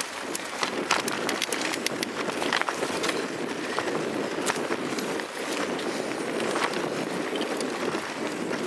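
Mountain bike riding over a dirt forest trail, picked up by a camera mounted on the bike: steady noise of the tyres rolling and air rushing past, broken by frequent irregular clicks and rattles as the bike jolts over the bumpy ground.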